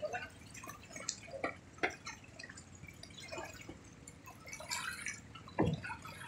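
Water dripping and splashing irregularly against small wooden boats at sea, with a dull knock about five and a half seconds in.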